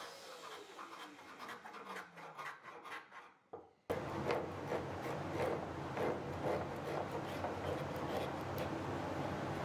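Small metal shoulder plane shaving a sapele hardwood block in repeated short strokes. It is quiet and sparse at first, then steady from about four seconds in.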